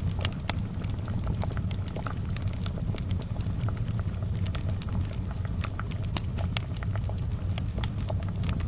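Crackling charcoal fire: irregular sharp pops and snaps, several a second, over a steady low rumble.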